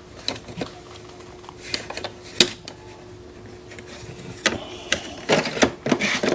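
Scattered plastic clicks and knocks as the maintenance box compartment of an Epson P900 photo printer is opened and handled, over a faint steady hum.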